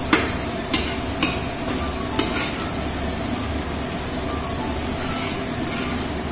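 Onion, garlic and green chilli paste frying in hot oil in a kadai, a steady sizzle. A spatula knocks against the pan a few times in the first couple of seconds.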